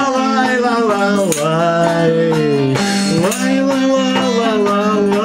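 A wordless "lai-la-lai" refrain sung over a strummed acoustic guitar.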